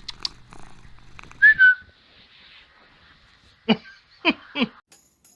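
Domestic cat sounds: a low steady hum that stops about a second and a half in, a short high whistle at about the same moment, then three short calls near the end.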